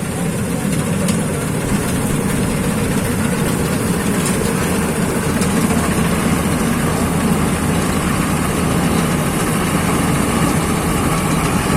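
Vishal 435 combine harvester running steadily under load, its engine and threshing machinery working as it harvests mung beans.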